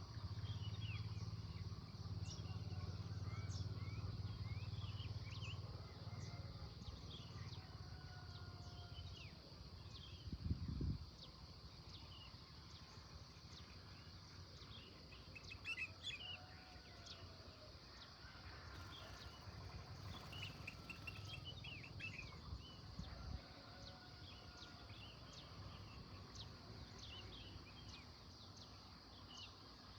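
Many small birds chirping and twittering in a morning chorus, over a steady high insect drone. There is a low rumble for the first few seconds and a brief low thud about ten seconds in.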